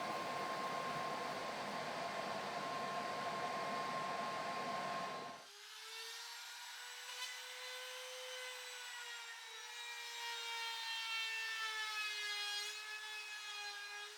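Power tool cutting or shaping wood, a steady rushing noise with a constant motor whine. About five seconds in it cuts off abruptly and gives way to a sustained pitched tone that wavers slightly in pitch.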